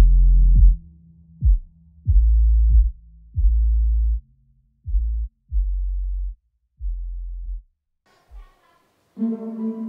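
Background electronic music: deep bass hits with sharp attacks, growing softer and dying away about eight seconds in. Near the end a new, calmer piece with a held chord begins.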